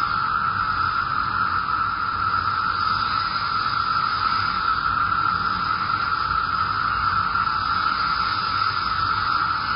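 Steady hiss with a constant high-pitched band in it, unchanging throughout.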